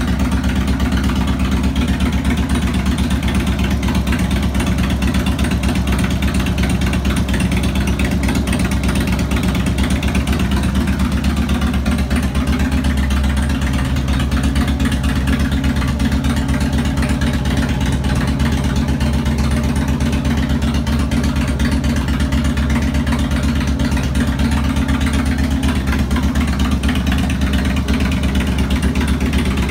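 Harley-Davidson Road King's fuel-injected Twin Cam 88 V-twin idling steadily with an even, low beat. The engine has freshly replaced cam chain tensioners and lifters.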